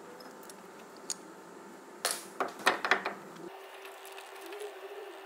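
Metallic clanks and clicks from a removed brake caliper and hand tools being handled, with a quick cluster of about half a dozen sharp knocks about two seconds in. A faint steady hum runs underneath.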